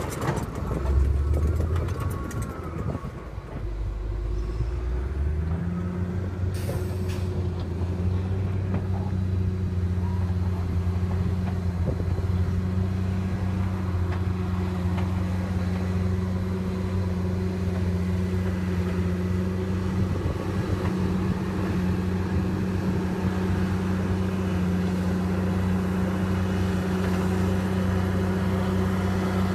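Heavy diesel engine of earthmoving machinery running steadily. Its pitch steps up over the first few seconds, then holds.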